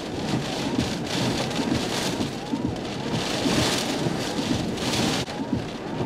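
Hurricane-force onshore wind driving heavy rain: a steady rush of wind and rain that swells into a strong gust about three seconds in and eases suddenly near the end.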